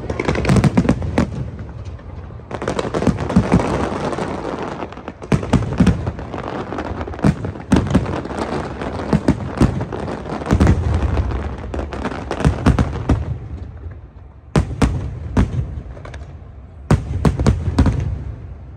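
Fireworks going off in a dense display: many sharp bangs and crackling bursts over a continuous rumble, easing briefly about three-quarters of the way through before another volley of bangs.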